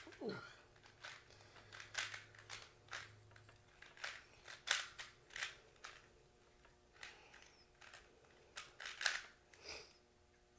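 Irregular plastic clicks and clacks of a Cubix Tube twisty puzzle being turned by hand, several turns in a row. The puzzle has poor turning quality.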